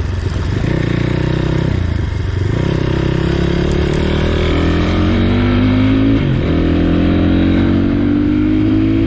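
Motorcycle engine accelerating through the gears. Its pitch climbs steadily and drops back at gear changes about two seconds in and about six seconds in.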